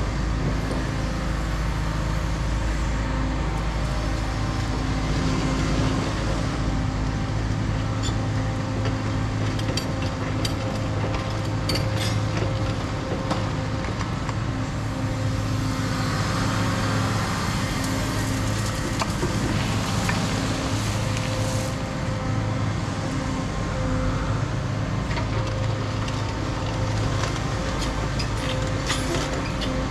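Caterpillar 335 excavator's diesel engine running continuously under hydraulic load while backfilling, its hum shifting every few seconds, with scattered clicks and knocks of gravel being handled.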